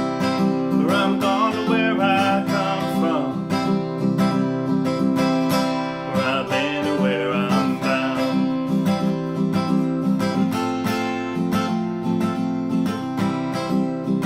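Acoustic guitar strumming chords in a country-style instrumental break, with a wavering lead melody over the strums twice.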